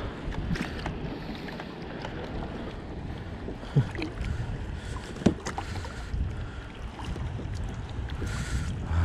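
Wind on the microphone and water sloshing around a fishing kayak. Two sharp knocks about four and five seconds in are the loudest sounds.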